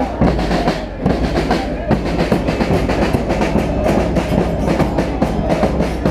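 Supporters' drums beating a fast, steady rhythm amid a loud crowd in the stands.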